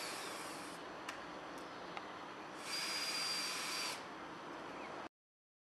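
Handheld cordless screwdriver driving screws to fasten wooden shingle panels, running in two short whining bursts, the second starting a little under three seconds in, with a few light clicks between. The sound stops abruptly about five seconds in.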